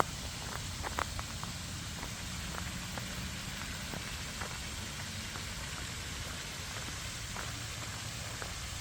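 Waterfall splashing: a steady rush of falling water, with a few faint ticks scattered through it.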